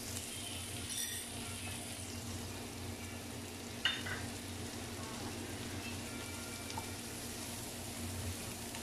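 Chopped onions sizzling in hot coconut oil in a frying pan, a steady frying hiss, with one brief click about four seconds in.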